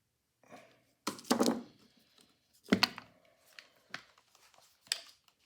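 Handling knocks and clatter of the phonograph motor and tools on a workbench: a cluster of thuds about a second in, a sharp knock near the middle, then a few lighter taps.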